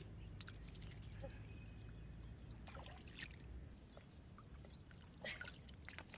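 Faint squelching of wet mud and trickling water as a snail trap is pulled up out of the mud, with a brief louder squelch about five seconds in.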